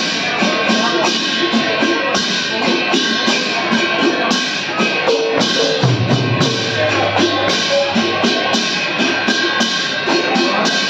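Several khol, the Assamese two-headed barrel drums, beaten by hand in a fast, steady rhythm, with a metallic ringing from hand cymbals over the strokes.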